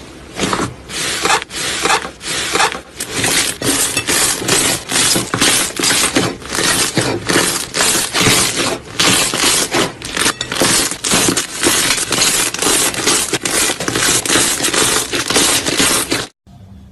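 Crunchy slime being squeezed and pressed by hand, giving repeated bursts of crackling and popping, about two or three a second, that stop abruptly near the end.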